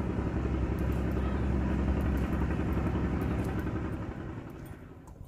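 A passing motor vehicle's engine hum, growing louder over the first couple of seconds and then fading away toward the end.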